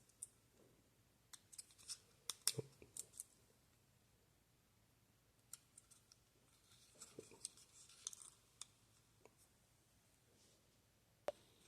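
Faint clicks and light scraping of a small plastic battery-powered door alarm being handled, in two short clusters with a sharper single click near the end; the alarm itself is not sounding.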